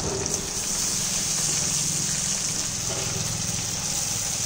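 Sliced onion, green chilli, garlic and ginger sizzling steadily in hot oil in a large iron kadhai, with a constant low rush from the gas burner flame underneath.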